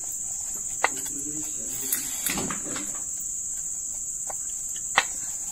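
Steady high chirring of crickets, with two sharp knocks, one about a second in and a louder one near the end, from a wooden rolling pin on a steel plate while dough is rolled out.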